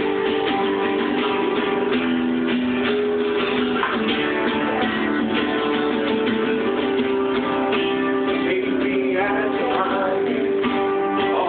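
Acoustic guitar strummed in held chords, with a man singing over it, his voice clearest near the end.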